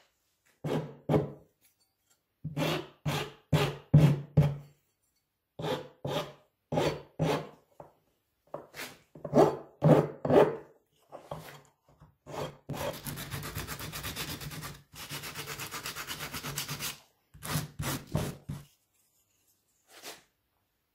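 Steel hand file rasping across a beech Domino tenon, in separate strokes of about a third of a second each. About two-thirds of the way in there are about four seconds of fast, continuous rubbing, then a few more strokes and one last stroke near the end.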